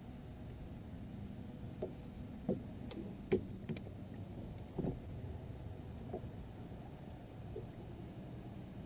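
A bass boat on the water: a low steady hum with water knocking against the hull and a few sharp clicks scattered through the middle, the loudest a little over three seconds in.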